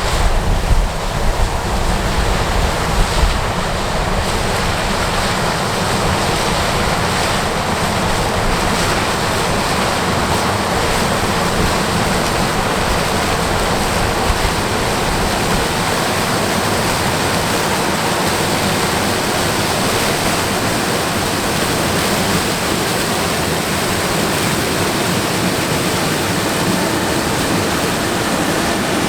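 Combine harvester running while harvesting corn: a loud, steady, even noise, with some uneven low rumbling in the first few seconds.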